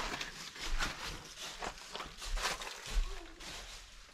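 Footsteps crunching through a thick layer of dry fallen leaves, several uneven steps in quick succession.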